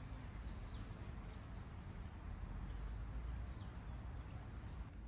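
Steady high-pitched insect trilling, with a few short, falling bird chirps scattered through it over a low background rumble.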